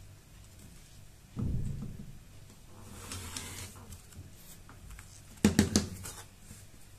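An acrylic quilting ruler and rotary cutter being handled on a cutting mat: a dull thump about a second and a half in, a faint soft brush in the middle, and a sharp clatter of knocks about five and a half seconds in as the ruler is lifted.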